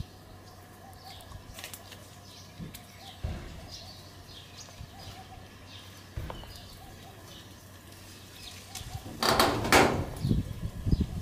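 Faint bird chirps in the background with a couple of soft knocks, then loud bursts of rustling and knocking for the last couple of seconds.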